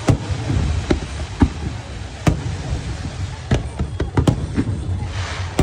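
Fireworks going off: scattered sharp bangs over a low rumble, turning into a dense burst of crackling near the end.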